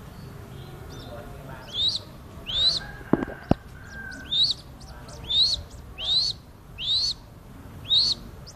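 Crested goshawk chick calling repeatedly: short, high, thin calls that rise and fall, about one a second, seven in all. Two sharp knocks a little after three seconds in.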